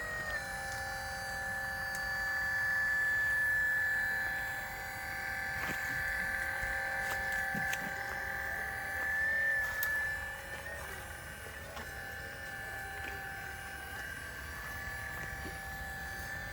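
Brushless motor and hydraulic pump of a 1/12-scale PC360 RC hydraulic excavator whining steadily while it digs, briefly louder twice, with a few short clicks.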